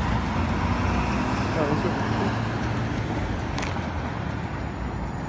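Steady low rumble of road traffic on the street, easing slightly toward the end.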